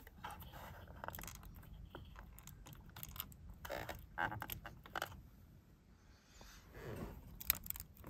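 Hands handling the plastic wiring connectors in a 2014 Mustang GT's steering-wheel hub while working the steering wheel control harness loose from the clock spring: faint, irregular clicks and rustles, with sharper clicks about halfway through and near the end.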